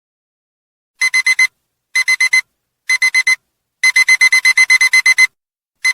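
Digital alarm beeping, high-pitched, starting about a second in: three quick groups of four beeps, then a longer run of about a dozen beeps, then another group begins at the end. It is the alarm that signals a countdown timer has reached zero.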